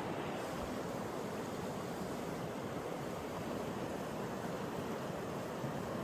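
Mountain stream water rushing steadily over rocks, an even noise with no break.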